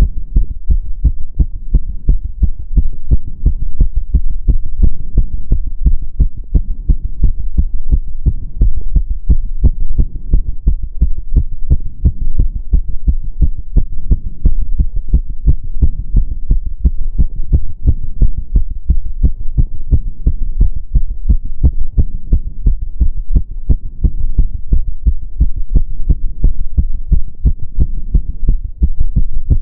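A woman's heart beating fast, recorded close up, raised by step-up exercise: a quick, even run of low thumps over a steady low rumble.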